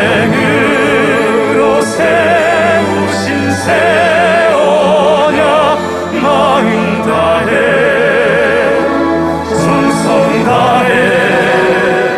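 Male vocal quartet singing a Korean hymn in harmony with wide vibrato, accompanied by a symphony orchestra with strings.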